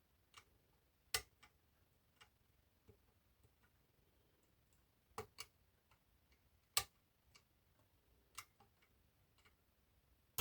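Faint, irregular metallic clicks and ticks of a hook pick working the levers inside an eight-lever lock. A handful of sharper clicks stand out among softer ticks.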